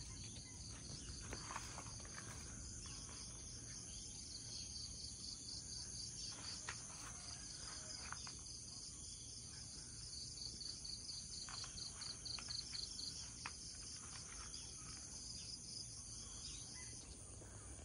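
Insects chirring steadily in a quiet background, a rapid, even high-pitched pulsing, with faint clicks and knocks now and then.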